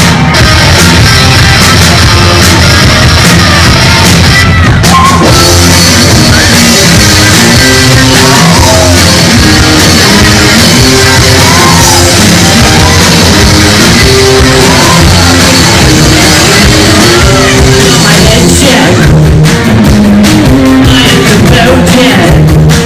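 Live rock band playing loudly on stage: electric guitars, electric bass and a drum kit, amplified through the PA.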